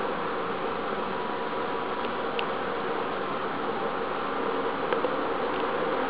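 Steady buzzing hiss with a few faint clicks, about two and a half seconds in and again near five seconds.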